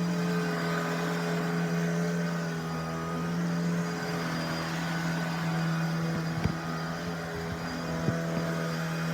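Shark Stratos cordless stick vacuum running with a steady motor hum, with a few light knocks about six and eight seconds in.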